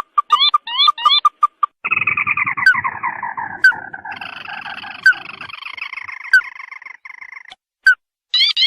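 Crake calls played as a bird-lure recording: a few short clipped notes, then a long chattering series that falls slowly in pitch for about five seconds with sharp single notes over it, and a few separate calls near the end.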